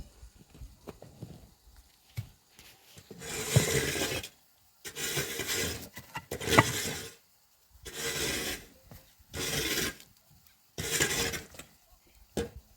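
A series of about five rasping, scraping strokes, each about a second long, repeating at a steady pace.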